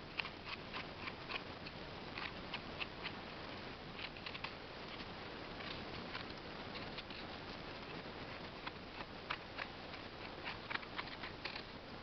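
A knife scraping sand and dirt off the stem base of a freshly picked porcini (white mushroom), in short quick strokes that come in irregular clusters.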